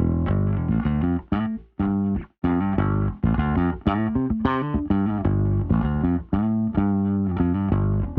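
Electric bass guitar playing a line of separate plucked notes, processed through the Bassment bass plugin, with a short break about two seconds in.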